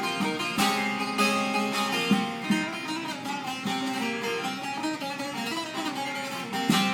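Bağlama (saz) played solo: a Turkish folk tune picked quickly on the strings, with a few hard strummed strokes.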